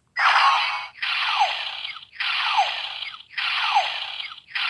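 Legend Changer DX toy's electronic sound effect playing through its small speaker with a Hero Piece loaded: a hissing pulse with a falling tone inside it, repeating about once a second, five times.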